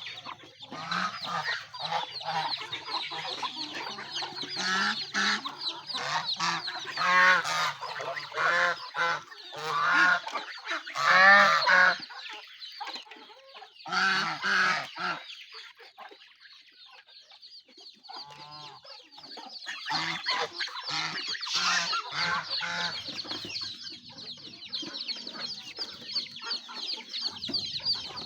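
Mixed farmyard poultry calling: geese honking and chickens clucking, with loud bursts of calls about a third of the way in. A quieter lull follows, then dense high chirping in the second half.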